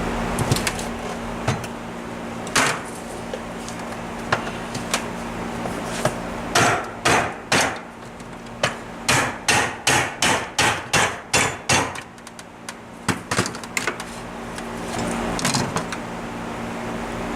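Hammer blows on a Tomos A35 moped engine's crankcase, driving the case halves apart to split them: a few scattered knocks, then a run of about a dozen hard strikes at roughly two a second, then a few more.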